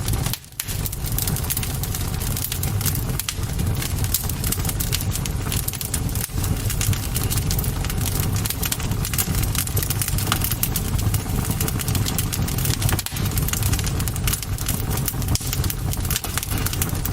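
Bonfire burning: dense, constant crackling and popping over a low, steady rumble.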